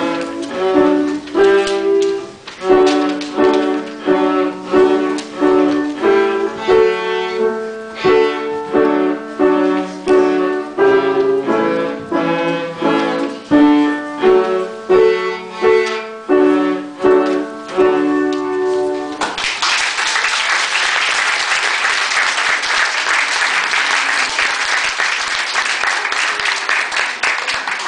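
A young beginner cellist playing the last phrases of a simple folk tune, with an accompanying instrument, in short regular notes; the music stops about 19 seconds in. Listeners then applaud.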